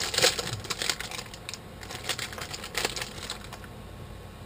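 Plastic snack packet crinkling and crackling as it is torn open by hand, a run of sharp crackles over the first three seconds, then quieter handling.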